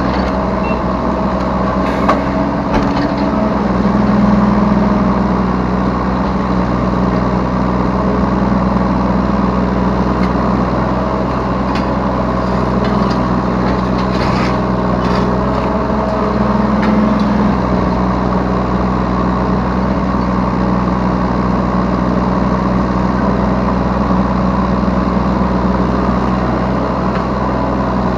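Yanmar B3Σ 3-ton mini excavator's diesel engine running steadily from the operator's seat, rising a little under hydraulic load twice. A few short knocks and rattles sound over it.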